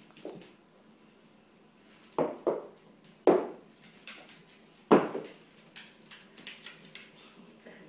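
Sharp knocks and thuds on a hardwood floor during a corgi puppy's play with a rope toy: four loud ones between about two and five seconds in. These are followed by lighter, quick tapping as the puppy's claws skitter across the wood.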